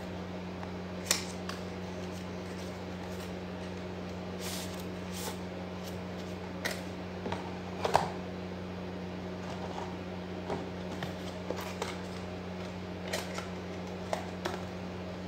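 Handling of cardboard packaging and plastic diamond-tester cases on a table: scattered light clicks, taps and rubbing, with one louder knock about eight seconds in, over a steady low hum.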